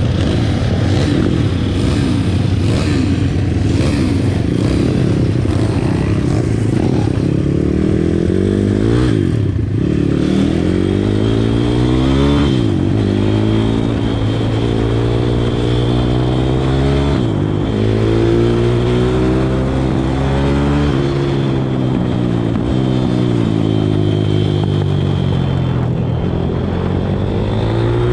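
Pit bike engine heard from on the bike, revving up and dropping back repeatedly as it accelerates and shifts gears, its pitch rising and falling again and again.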